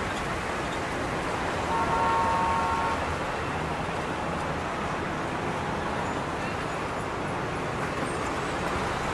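Steady road-traffic noise, with a brief horn-like toot about two seconds in.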